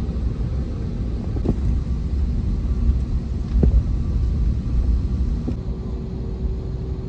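Airbus A320neo heard from inside the cabin while taxiing: a steady low rumble of engines at taxi power and rolling wheels. Two short light thumps come in the first half, and a steady hum tone joins near the end.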